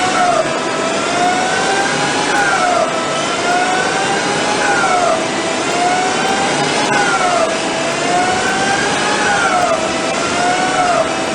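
ECL 360 CNC lathe running: a steady whine that climbs slowly in pitch for about two seconds, then drops quickly, repeating about every two and a half seconds over a bed of machine noise.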